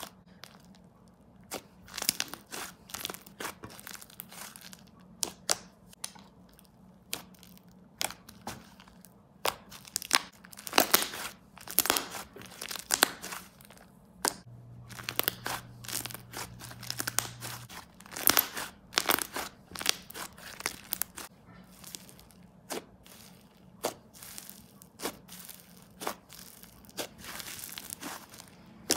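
Fluffy butter slime being squished, stretched and pressed by hand: irregular sizzling crackles and small bubble pops as air pockets in the slime burst, coming in uneven clusters.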